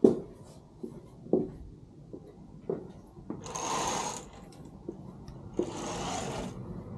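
A curtain pulled along its rail twice, two sliding sweeps of about a second each, one around the middle and one near the end, among a sharp knock at the start and a few lighter clicks of handling.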